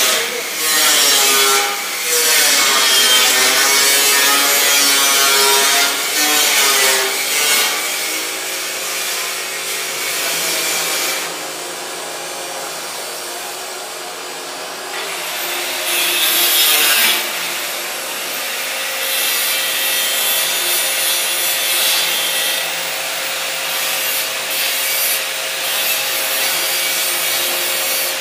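Stainless steel being worked with tools: continuous grinding and rubbing that rises and falls. It drops quieter for a few seconds midway, then picks up again.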